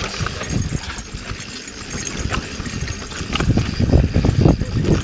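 Yeti SB 4.5 mountain bike rolling fast down a rough dirt trail: a steady tyre rumble with rattling knocks from the bike, getting louder over the last second or so.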